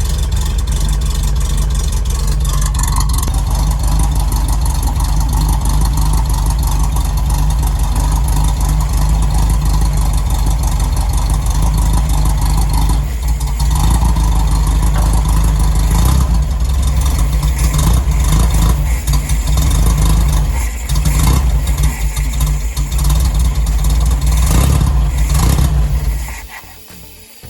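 1974 VW Super Beetle's air-cooled flat-four engine running, unevenly in its second half, then stopping about 26 seconds in; it is being fogged with fogging oil for winter storage.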